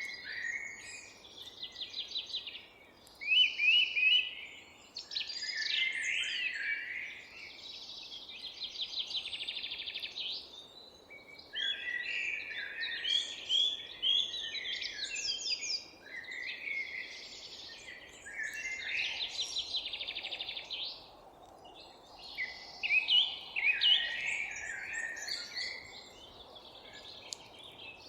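Several songbirds singing over one another, with phrases a second or two long that include fast trills and quick rising and falling notes, against a faint steady background rumble.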